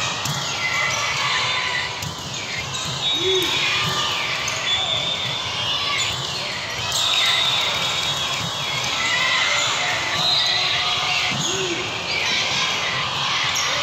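Indoor volleyball play on a hardwood gym floor: many short sneaker squeaks, a few sharp knocks of the ball being hit, and players' voices in a large hall.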